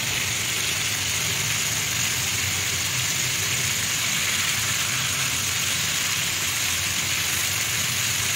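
Spice-coated brinjal slices shallow-frying in oil on a tawa, a steady sizzle, with a steady low hum underneath.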